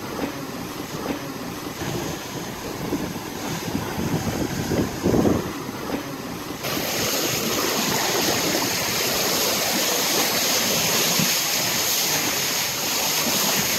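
Water rushing past the hulls of a sailing catamaran making 11 to 12 knots, with wind buffeting the microphone. About seven seconds in it changes abruptly to a steady, brighter hiss of bow-wave spray along the hull.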